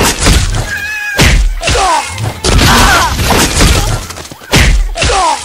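Pool water splashing hard as people wrestle and fall in it, in several loud surges, with short shouts over the splashing.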